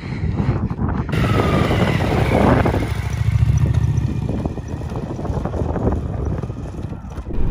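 Loaded adventure motorcycle's engine pulling away along a gravel track, loudest in the first few seconds and then fading as it rides off.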